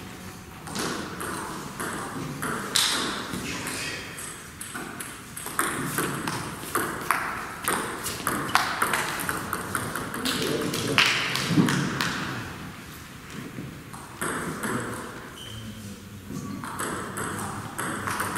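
Table tennis ball clicking rapidly and irregularly, struck back and forth with rubber-covered bats and bouncing on the table during rallies, with a lull about two thirds of the way through before play picks up again.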